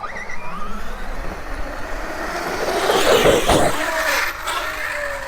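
Arrma Outcast 8S RC truck's electric motor whining as it accelerates toward a snow jump, with drivetrain and tyre noise. The sound is loudest about three seconds in, with a couple of short knocks there, and a steady whine follows as the truck gets air.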